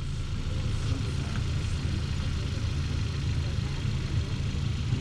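Hyundai Veloster's four-cylinder engine idling steadily as the car creeps forward at walking pace.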